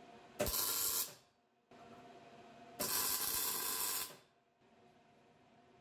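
Arc welding in short bursts, as when tacking parts together: a brief hissing burst about half a second in and a longer one of just over a second about three seconds in, each starting and stopping abruptly. A faint steady hum runs between the bursts.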